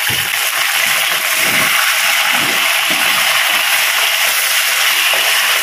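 Garlic, curry leaves and sauces sizzling in hot oil in a wok as a steady hiss, with a spatula stirring through them.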